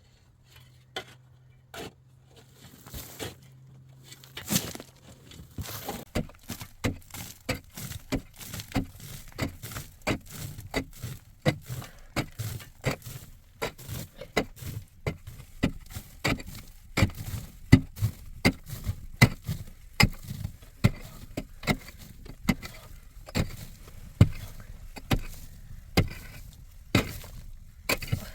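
A long series of sharp blows, struck steadily about one to two times a second, sounding like a hand tool chopping or hacking; they grow louder and closer together after about six seconds.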